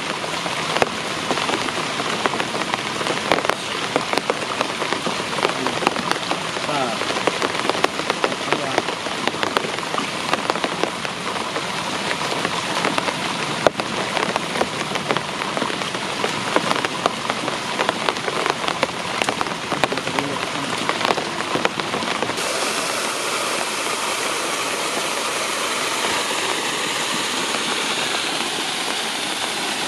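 Rain falling steadily, a dense patter of drops. About two-thirds of the way through, the patter gives way to a smoother, even rush.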